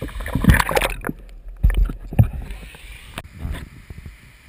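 Water sloshing and splashing right against a helmet-mounted GoPro HD Hero 2, with irregular low thumps and bursts of spray, dying down near the end.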